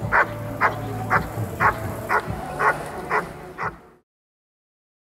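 Airedale terrier barking repeatedly at a helper holding a padded bite sleeve, the guarding bark of protection work. The barks come evenly, about two a second, and stop about four seconds in.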